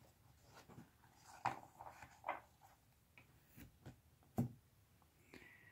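Faint rustling and light taps of a stack of tarot cards being gathered up and set down on a wooden table, with one firmer tap about four and a half seconds in.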